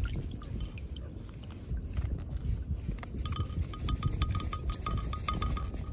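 Wind buffeting the microphone in a low, uneven rumble. From about three seconds in, a faint rapid series of short high notes repeats several times a second.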